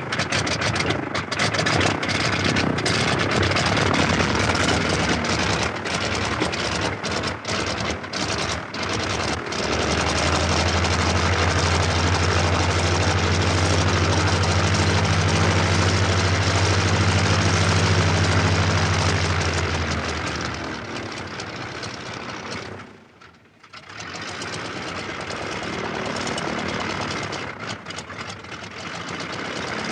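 Fokker Dr.I triplane's engine running on the ground at idle. For the first ten seconds or so it runs unevenly with brief drop-outs, then settles into a steady run. About three-quarters of the way through it sags and almost cuts out, then picks up again.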